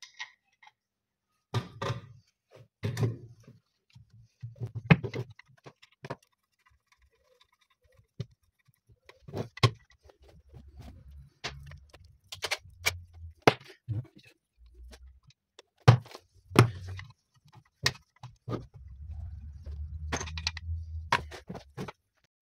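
Irregular metallic clinks, taps and knocks of hand tools as the screws on an electric winch's motor housing are tightened, with some low handling thuds.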